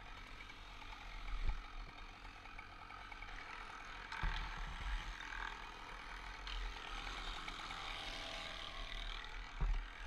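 Wind rumbling on the helmet camera's microphone over the steady, distant running of the crane's engine, with dull low bumps about a second and a half in, just past four seconds, and near the end.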